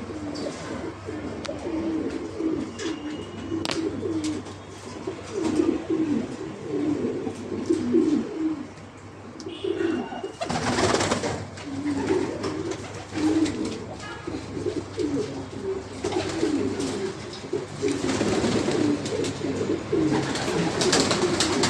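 A loft of racing pigeons cooing, many short overlapping coos from several birds at once. There is a brief rushing burst of noise about ten seconds in.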